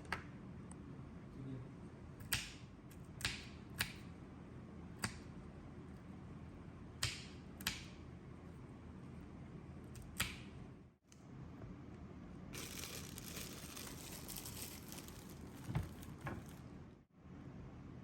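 Kitchen preparation sounds: about ten sharp taps and knocks spread unevenly, like utensils or food set down on a hard surface, over a steady low hum, with a few seconds of hissing rustle in the later part.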